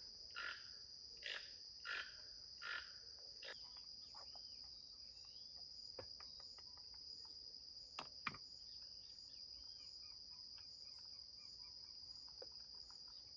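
Faint, steady high-pitched insect chorus. Over the first few seconds a bird gives about five repeated calls, roughly one every 0.7 s, followed by scattered faint chirps and two sharp clicks about 8 seconds in.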